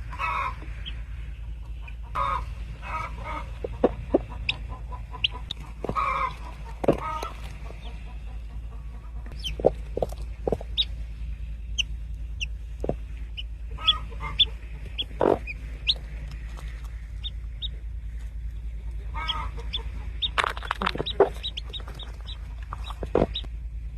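Chickens calling: short high peeps scattered throughout, with lower clucking calls now and then, over a steady low hum.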